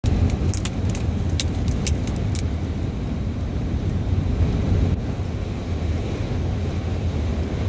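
A car driving, heard as a steady low rumble of road and wind noise. A quick run of sharp ticks comes in the first two and a half seconds.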